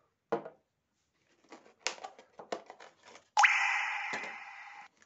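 Packaging being handled on a table: a knock as the metal trimmer is set down, a string of light clicks and taps, then a louder sliding rasp that starts suddenly and fades over about a second and a half as the cardboard insert is drawn out of its box.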